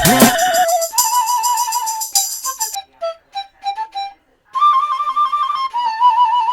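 Background music: a solo melody of held notes with a wavering vibrato, played in short phrases with a pause in the middle. A loud beat-driven track breaks off just at the start.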